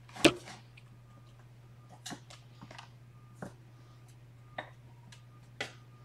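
Scattered light taps and knocks from kittens playing right at the camera, the loudest about a quarter of a second in, over a steady low hum.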